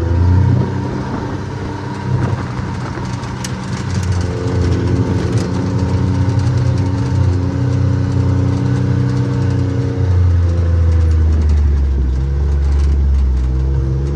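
Motor vehicle engine running while driving uphill, its pitch shifting with speed and getting louder and lower about ten seconds in, with a few light knocks about three to five seconds in.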